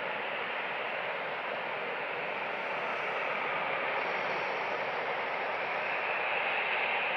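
Airliner's jet engines at taxi power, a steady rushing hiss that grows a little louder and brighter from about four seconds in as the jet turns toward the listener.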